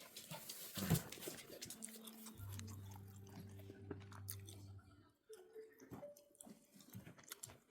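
Shiba Inu puppy mouthing and chewing at a recorder, heard as faint scattered clicks and scraping close to the device, with a soft low hum in the middle.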